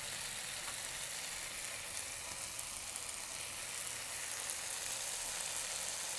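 Beetroot chicken curry sizzling steadily in a pan on the stove.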